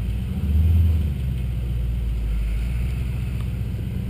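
Off-road competition truck's engine running, louder for a moment about half a second in, then settling back to a steady low sound.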